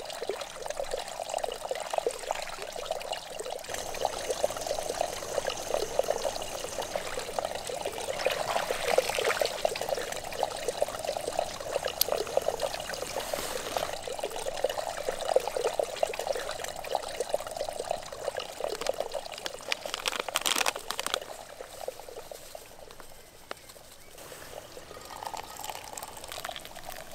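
Water trickling and bubbling steadily, with a brief louder crackle about two-thirds of the way through. Near the end, hot water is poured from a camping pot into a pour-over coffee filter on a steel mug, the pitch rising a little as it fills.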